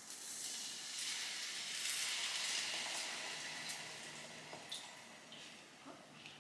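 Water poured from a filter jug into a hot frying pan of food, sizzling and hissing as it hits the pan. The hiss swells over the first two seconds, then dies away as the pouring stops.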